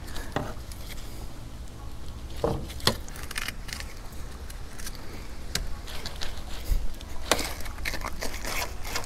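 Large scimitar knife cutting along a mutton snapper's rib cage to free the fillet, with scattered scraping and crackling clicks as the blade runs over the bones.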